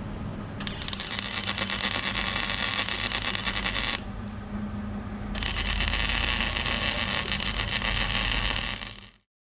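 MIG welder laying two long beads on the steel door frame: a dense, steady crackle-and-hiss of the arc, one run of about three seconds, a short pause, then a second run of about three and a half seconds, over a steady low hum. The sound cuts off abruptly just before the end.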